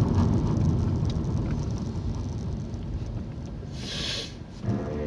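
Road and engine noise inside a moving car: a low rumble that slowly eases off, with a brief hiss about four seconds in.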